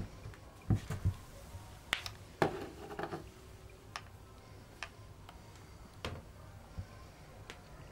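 Slow footsteps on a wooden floor: soft low thuds spaced well apart, with scattered sharp clicks in between and a busier cluster of small noises about two and a half seconds in.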